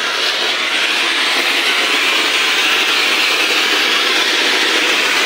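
Ground fountain firework (anar) spraying a tall column of sparks, with a loud, steady hiss.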